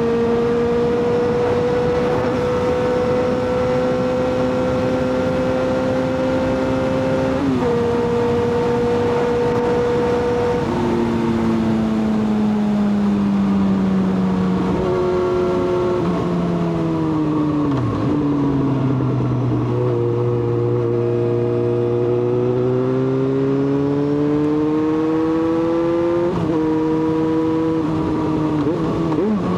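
Yamaha XJ6's 600 cc inline-four engine running under riding load, its pitch holding, stepping and gliding with throttle and gear changes. It falls to its lowest pitch in the middle, then rises steadily as the bike accelerates again. Wind noise runs underneath.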